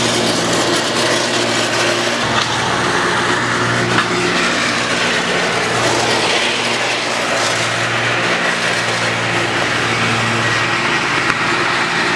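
A small engine running steadily, with an even, unbroken drone that holds its pitch throughout.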